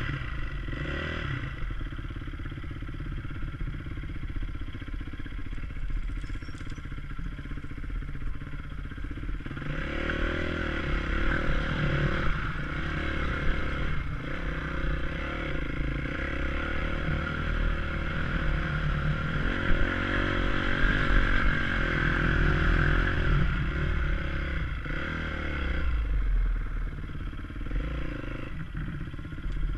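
Honda CRF250X dirt bike's single-cylinder four-stroke engine at low speed, its revs rising and falling in short pulls of the throttle. It gets louder and busier from about ten seconds in.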